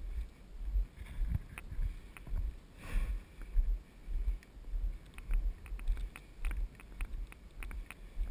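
Footsteps of a walking player heard on a body-worn camera, low thuds about twice a second, with scattered sharp ticks that grow more frequent in the second half.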